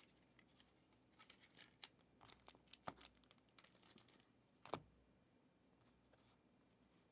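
Faint crinkling and light clicks of trading-card packs and cards being handled, with one sharper knock about five seconds in, then near silence.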